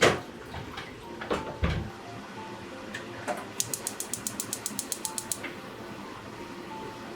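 A sharp knock of cookware being set down, a few lighter clunks, then a fast, even run of clicks, about eight a second for roughly two seconds, like a gas stove's igniter sparking.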